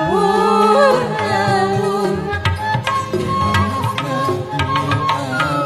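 Live dangdut music: a woman singing into a microphone over a steady hand-drum beat and instrumental backing.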